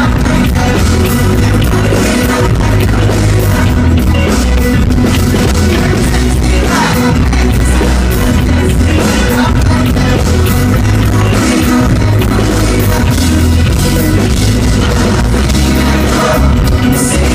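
Live rock band playing loudly through a venue sound system, with a male lead voice singing over electric guitar and a heavy bass and drum beat. Recorded close to the stage, so the sound is rough and overloaded.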